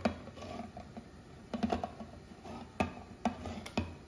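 Handheld side-cutting (smooth-edge) can opener being cranked around the rim of a steel can, making irregular clicks and short grinding crunches as its wheel cuts the seal.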